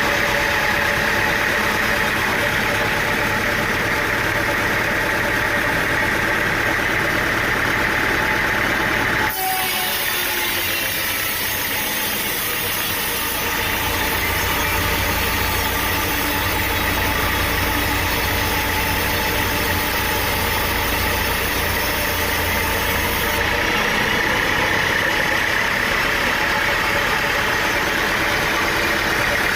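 An engine running steadily, its sound changing abruptly about nine seconds in and again around fourteen and twenty-three seconds in.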